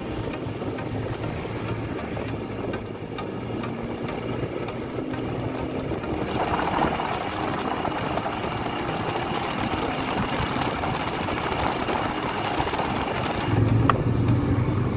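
Motorcycle engine running steadily while riding along a paved road, with wind and tyre noise; it grows a little louder near the end.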